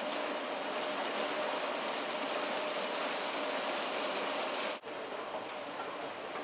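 Escalator running: a steady mechanical hum under an even hiss. The sound drops out for a moment near the end and comes back slightly quieter and without the hum.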